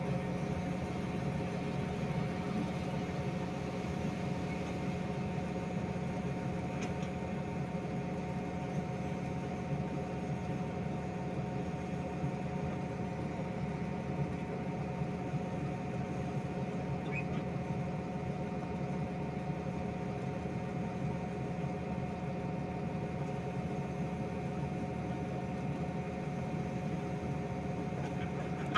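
Diesel engine of a heavy earthmoving machine running steadily at constant speed, a continuous even drone with no change in pitch or load.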